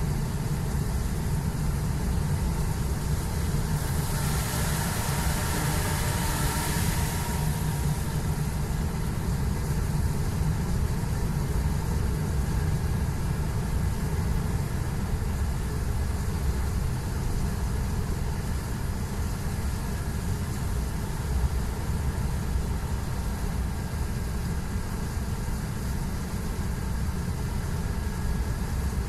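Steady engine drone and wet-road tyre noise heard inside a heavy truck's cab while it drives downhill, with a rushing hiss lasting about three seconds a few seconds in.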